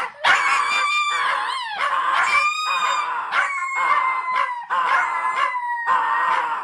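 Small dog howling over and over, in drawn-out, high-pitched calls with short breaks between them.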